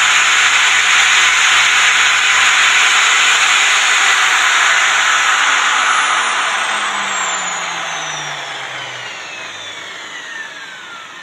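Bosch corded electric drill running steadily at full speed with no cutouts, its cable's loose contact repaired, then released about halfway through and spinning down, its motor whine falling in pitch and fading.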